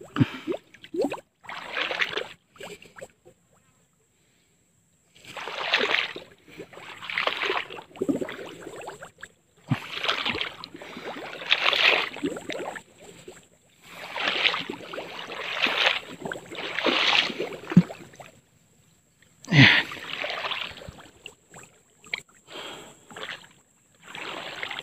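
Legs wading through shallow pond water: a splashing swish with each stride, about one every second or so, with a pause of a couple of seconds near the start.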